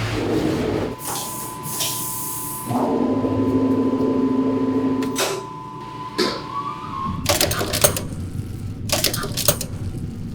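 Edited sound-effect montage: a steady high tone with whooshing sweeps over it, then from about seven seconds in, bursts of rapid mechanical clattering.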